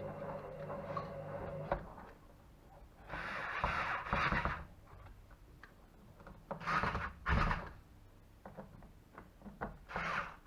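Plastic housing parts of a car cooler box being handled and fitted together by hand: a few separate bursts of scraping and knocking, about three, seven and ten seconds in. A low steady hum in the first two seconds stops abruptly.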